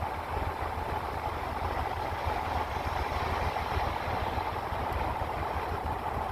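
Truck engine idling steadily with a low, even rumble, heard from inside the cab while the truck sits waiting to be loaded.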